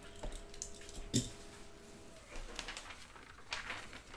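Hands handling the cardboard card boxes with two light knocks, then a printed paper sheet rustling as it is picked up and held out.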